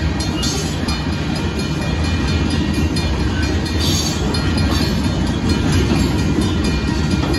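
Loaded gravel hopper cars of a Union Pacific freight train rolling past: a loud, steady rumble of steel wheels on the rails.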